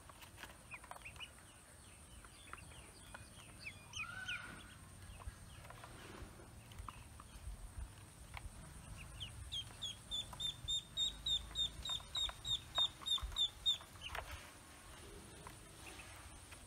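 Newly hatched ducklings peeping: scattered short peeps at first, then from about nine seconds in a run of some fifteen evenly spaced, downward-sliding peeps, about three a second, which stops a few seconds before the end.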